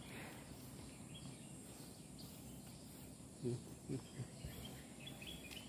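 Faint outdoor ambience with a few short, high bird chirps, and two brief low sounds about halfway through.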